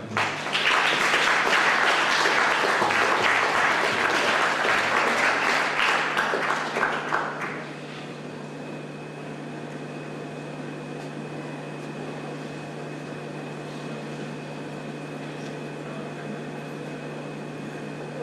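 Audience applauding for about seven and a half seconds, then dying away. After that only a steady low hum remains, with a faint high tone.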